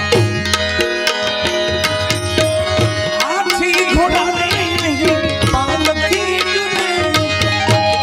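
Live devotional bhajan music: harmonium playing sustained chords over steady hand-drum beats. A man's singing voice comes in about three seconds in, gliding between notes.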